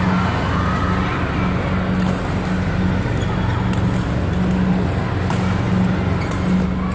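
A steady low drone, with faint sharp clicks of badminton rackets striking the shuttlecock every second or two during a rally.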